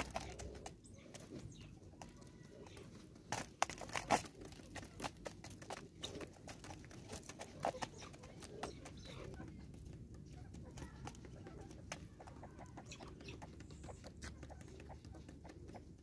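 Helmeted guineafowl pecking at seed on a wooden stump and in a plastic bag: irregular sharp beak taps and crinkles, loudest about three to four seconds in, with soft clucking from the birds.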